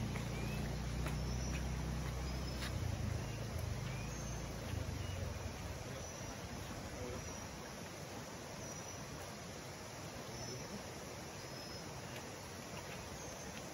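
Insects chirring steadily in the surrounding forest, with a few faint, short, high chirps. A low rumble fades out about five seconds in.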